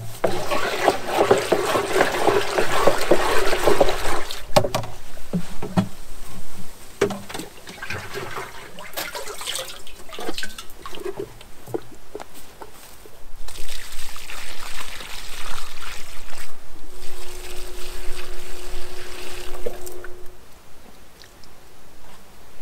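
Liquid cow-manure fertiliser sloshing as it is stirred with a stick in a plastic barrel for the first few seconds. Then come scattered knocks, and about halfway through, liquid pouring from a watering can onto the soil in a stretch of trickling and splashing.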